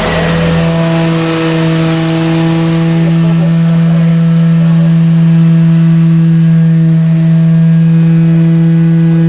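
Machinery at a concrete pour running with a loud, steady, even hum that sets in about half a second in, replacing a deeper rumble.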